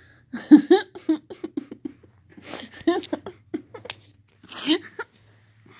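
Short wordless voice sounds among clicks and rustling from the phone being jostled and handled.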